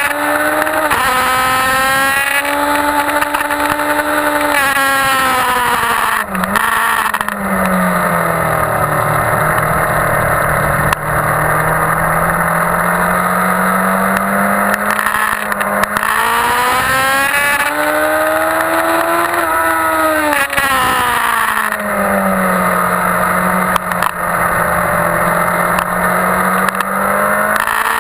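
2001 Yamaha YZF-R1's inline-four engine running hard at speed, its pitch falling steeply about seven seconds in and again about three-quarters of the way through, and climbing in between and near the end as the bike accelerates. A steady rush of wind noise runs under it.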